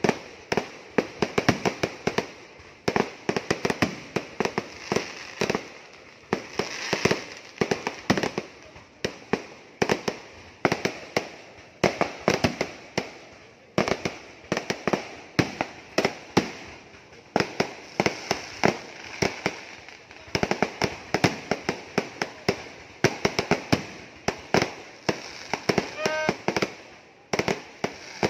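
Fireworks going off in a rapid, unbroken barrage: sharp firecracker bangs, several a second, with aerial shells bursting overhead.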